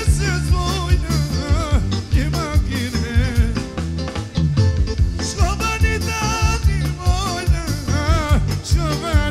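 Live band music with singing: a wavering, ornamented melody over a steady bass line and drums keeping a regular beat.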